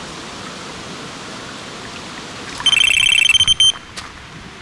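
Electronic carp bite alarm sounding a rapid run of beeps for about a second, over a steady hiss: the alarm registering line being pulled on a rod, a bite.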